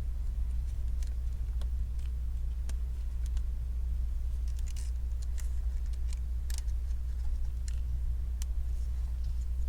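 Steady low hum with scattered small clicks and taps of hands handling laptop plastic parts and hinge hardware.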